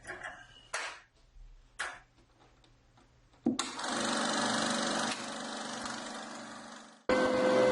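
A few clicks of controls, then about three and a half seconds in the Bell & Howell Model 2592 16mm sound film projector starts up and runs with a steady mechanical whirr. About seven seconds in, the sound jumps suddenly louder, with a steady hum tone added.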